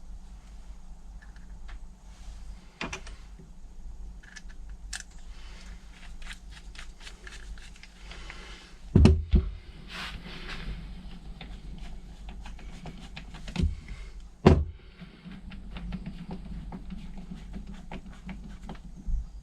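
Small metal clicks and taps of carburettor parts and tools being handled during reassembly, with a few louder knocks about halfway through and twice more a few seconds later, over a low steady hum.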